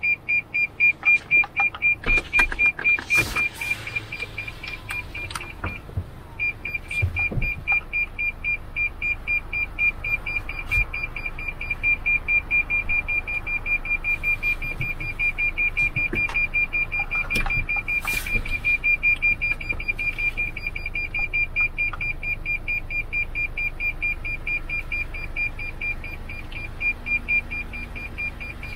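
A car's obstacle or clearance sensor beeping rapidly in a steady high tone as the car squeezes between close walls, warning that obstacles are very near. The beeping breaks off briefly about six seconds in, then resumes.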